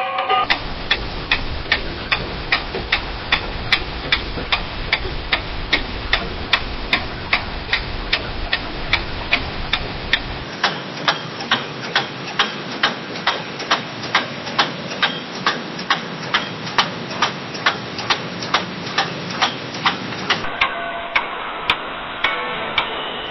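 Clock ticking steadily, about two ticks a second, over a low background hiss. About twenty seconds in, faint held tones join the background while the ticking continues.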